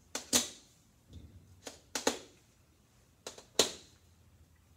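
Fingers pressing round stickers onto a whiteboard: a handful of sharp taps on the board, some in quick pairs.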